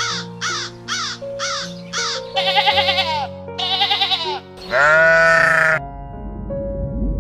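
Animal calls over background music: five short, high falling chirps, then three quavering bleat-like calls, the last one longest and loudest.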